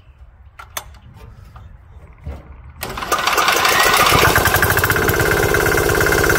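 Small 196 cc air-cooled single-cylinder diesel engine starting: a few faint clicks, then about three seconds in it catches and runs with a rapid, even diesel clatter, noisy and settling into a steady fast idle.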